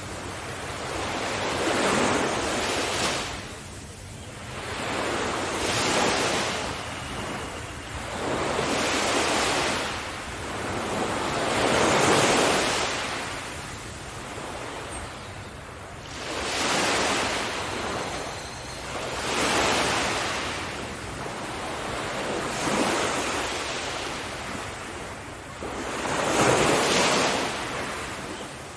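Ocean waves breaking on a shore, each wash swelling and falling away in a slow rhythm, roughly one every three to four seconds.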